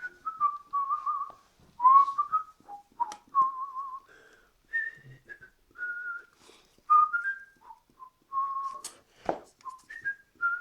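A man whistling a tune: a single melodic line of short notes and warbling held notes, moving up and down. There are a few light clicks, and one knock about nine seconds in.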